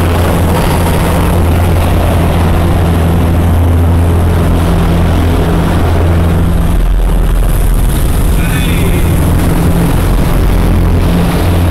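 Light aircraft's piston engine and propeller droning heard from inside the cabin during aerobatic manoeuvres, a loud low hum whose note drops about halfway through and comes back up near the end.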